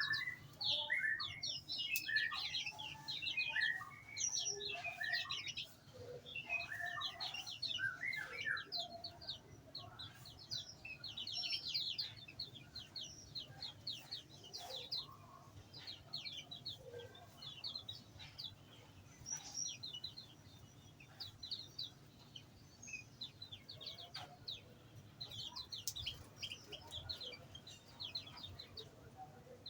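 Many small songbirds in an aviary chirping and twittering at once, with dense overlapping short high chirps, busier in the first half.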